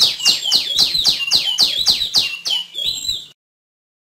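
Female tiểu my songbird calling: a fast run of clear notes, each sweeping down in pitch, about four a second, that cuts off abruptly near the end.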